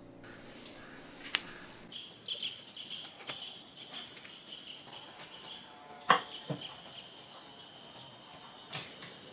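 Knife cutting and peeling the husk off a fresh bamboo shoot on a wooden board: scattered sharp clicks and knocks, the loudest about six seconds in. Birds chirp steadily behind.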